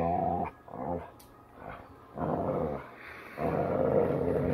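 Chocolate Labrador retriever play-growling in three drawn-out growls, the last one the longest.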